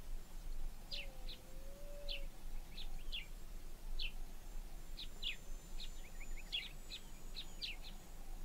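Wild birds chirping: short falling chirps repeated irregularly, several a second at times, with one longer low note about a second in, over a faint steady background rumble.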